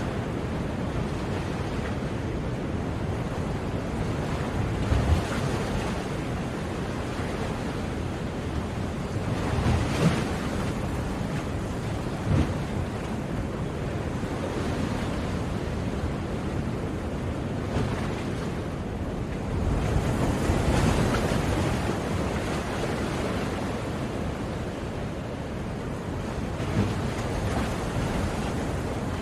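Ocean waves washing onto a shore in a continuous rush, swelling louder every few seconds as waves break.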